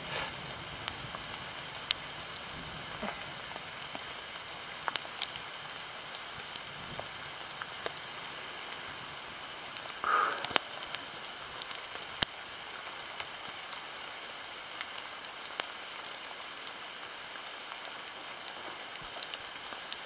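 Rain easing off in woodland: a steady soft hiss of rain on the leaves, with scattered sharp drips of single drops. A short, louder rustle comes about halfway through.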